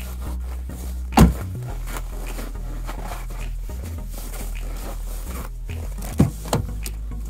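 Three heavy thumps over low, steady background music: one about a second in, and two in quick succession near the end. They are the Trailblazer's rear seatbacks being folded down flat.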